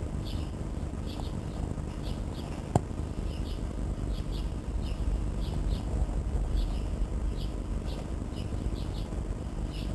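Short high chirps repeating irregularly, about two a second, over a steady low rumble, with one sharp click about three seconds in.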